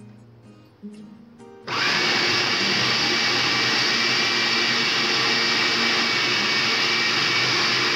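Electric food processor motor starting suddenly about a second and a half in and running steadily at full speed, its blade grinding boneless chicken, onion, herbs and spices into kebab mince.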